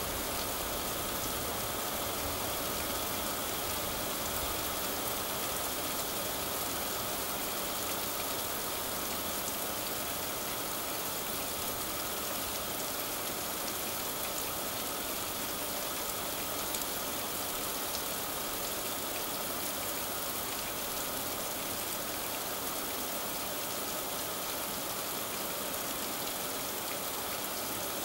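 Steady rain falling during a thunderstorm, an even hiss that holds at one level throughout.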